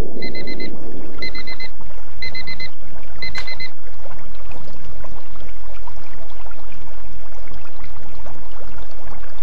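Water bubbling and sloshing, with four quick bursts of high electronic beeping about a second apart during the first four seconds.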